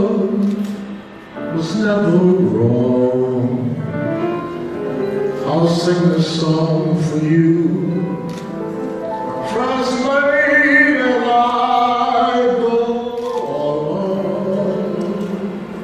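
A man singing with held, sliding notes into a microphone, over instrumental accompaniment with light cymbal ticks.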